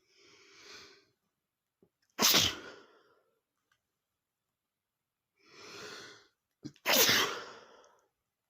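A man sneezing twice, about five seconds apart. Each loud sneeze follows a quieter, breathy intake of breath. The sneezing is set off by dust from a book.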